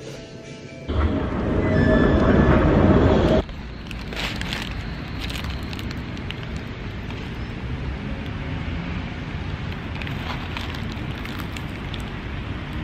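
Outdoor wind and distant traffic noise, with a loud rush of wind on the microphone lasting about two and a half seconds, starting about a second in. A paper bag crinkles now and then.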